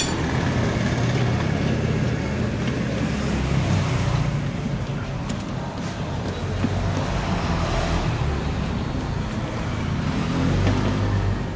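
Steady low mechanical rumble, like a motor vehicle running, with no distinct knocks or clicks.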